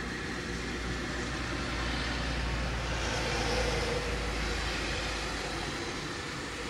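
Refuse collection lorry's diesel engine running as the lorry moves slowly along a wet road, with a steady low hum and a swell of noise in the middle.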